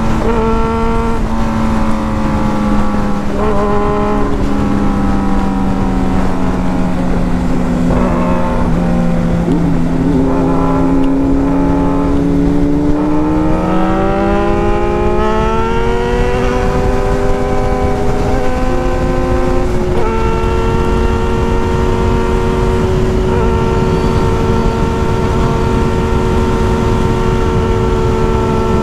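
Motorcycle engine on the move, over heavy wind and road noise. The engine note steps down and falls over the first ten seconds or so, climbs steadily for about six seconds as it accelerates, then holds a steady pitch while cruising for the last third.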